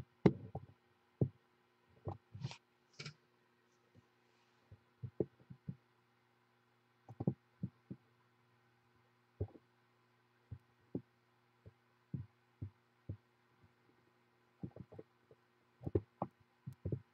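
A steady low electrical hum with irregular soft knocks and clicks, like handling noise from the paper sheet and the camera being held.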